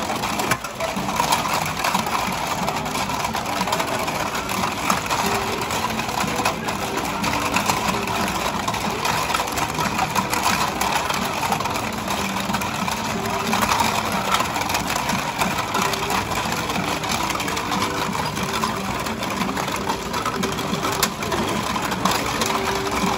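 Motorised children's fishing-game table running: a small motor whirs steadily while the plastic fish on the turning pond clatter.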